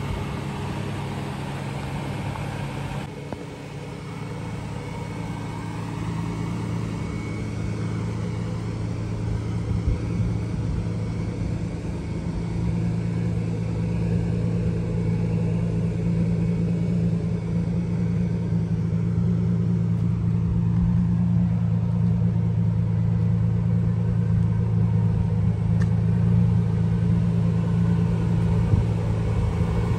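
Toyota 1JZ-GTE VVTi 2.5-litre turbocharged inline-six in a Nissan D22 pickup, idling steadily with a low even rumble. It gets somewhat louder about twelve seconds in.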